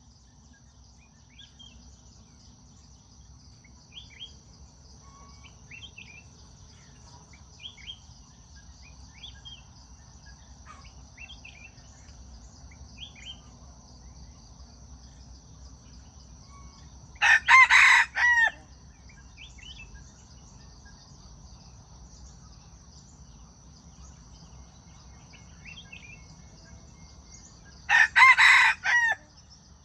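A rooster crowing: two short crows of about a second each, one roughly 17 seconds in and one near the end. Between them are faint scattered bird chirps and a steady high insect drone.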